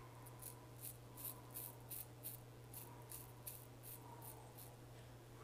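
Klas Törnblom straight razor scraping about two weeks of beard stubble off a lathered cheek, on a first pass with the grain. It makes faint short scratchy strokes, about three a second.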